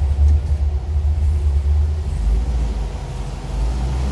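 GM Performance LS3 V8 in a 1956 Chevy Nomad idling on its first start-up, a deep steady rumble with a mellow tone through Flowmaster 50 series mufflers. Its pitch drops lower about two seconds in.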